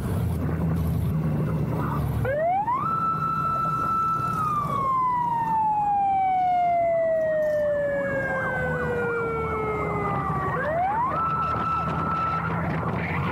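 Escort motorcycle's siren sounding a manual wail: the tone rises about two seconds in, holds a high note, then slowly winds down over about six seconds before rising again and holding. Underneath is the steady engine and wind noise of the Kawasaki GTR 1400 on the move.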